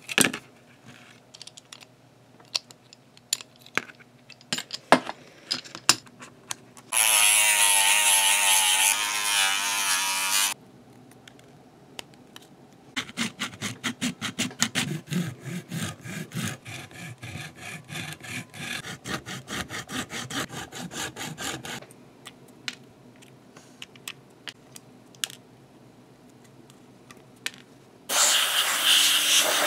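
Small plastic toy-train parts being handled and scraped with a hand-held blade: scattered clicks, then a run of rapid scraping strokes at about three a second. Two loud steady bursts break in: one of about three and a half seconds with a wavering whine, and a hiss starting near the end.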